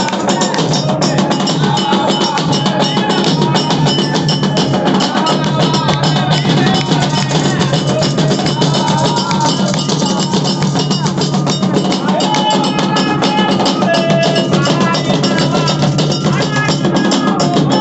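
Candomblé drumming: a dense, steady rhythm of hand drums (atabaques) running without a break.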